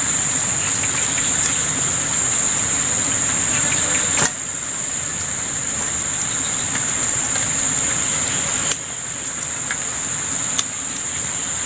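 Insects chirring steadily in one continuous high-pitched drone, with a few brief clicks.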